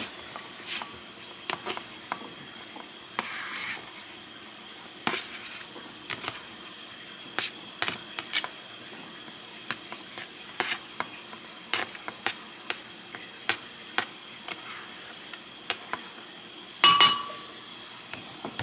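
Kitchen knife tapping and scraping diced red bell pepper off a plastic plate into a ceramic bowl: a run of light, irregular clicks and taps, with one louder clink near the end.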